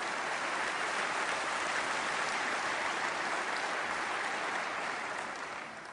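Large audience applauding, steady and then dying away near the end.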